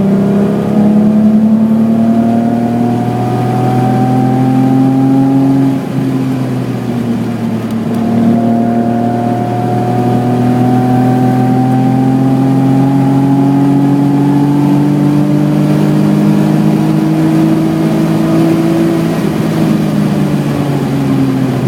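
BMW E28's 3.6-litre engine pulling hard under full throttle on a race track, its pitch climbing for about six seconds. It dips briefly at a gear change, climbs again in a long steady rise, and falls away near the end as the throttle comes off.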